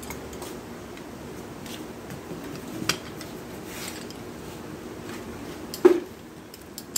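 Metal alternator parts being handled and set down on a workbench: a clunk about three seconds in and a louder, slightly ringing clunk near six seconds, over a steady low hum.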